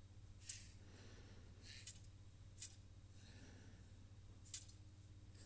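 Near silence: room tone with a steady low hum and four or five faint, short, hissy ticks.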